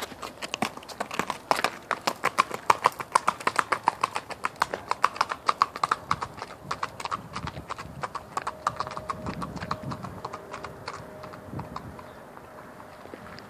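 Hoofbeats of a ridden Saddlebred–Walking Horse cross clip-clopping at a quick, even pace on a hard driveway. The hoofbeats fade as the horse moves away.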